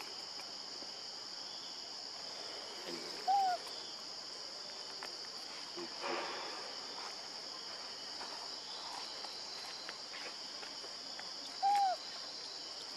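Steady high-pitched drone of insects in the background. Twice, about eight seconds apart, a short call rises and falls in pitch, louder than the drone.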